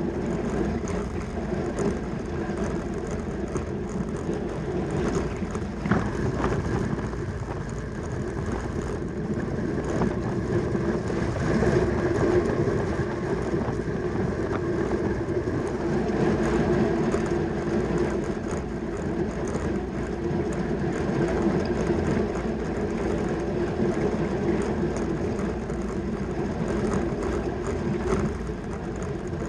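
A track bicycle ridden at race speed, its tyres and fixed-gear chain drive making a steady rolling whir.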